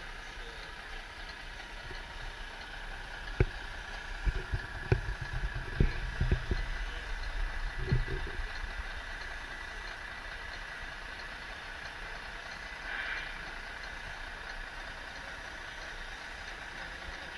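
Radio-controlled scale model trucks running with a steady engine-like hum. A cluster of sharp knocks and low thumps comes about three to eight seconds in.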